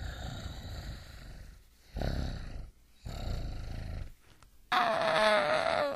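Dinosaur sound effect for a Tyrannosaurus rex: three low rumbling growls, then a louder, longer roar with a wavering pitch near the end.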